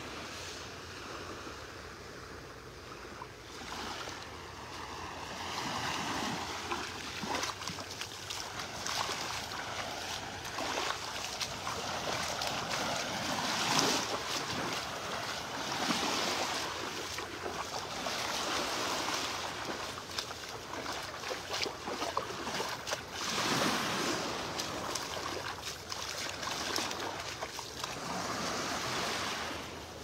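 Small waves washing onto a sandy beach from a calm sea, the surf swelling and easing every few seconds, with some wind on the microphone.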